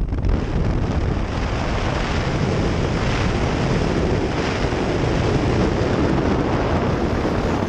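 Loud, steady rush of wind and engine noise through the open door of a small single-engine propeller plane in flight, with wind buffeting the microphone.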